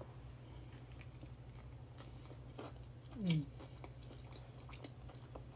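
Faint chewing of a bite of fried chicken sandwich, with small scattered mouth clicks. About three seconds in there is a brief falling hum from the eater.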